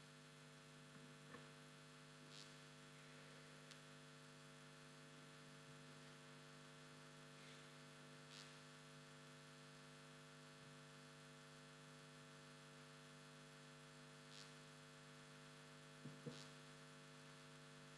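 Near silence: a steady electrical mains hum, with a few faint clicks and taps as metal altar vessels are handled and set down; the loudest are two taps close together near the end.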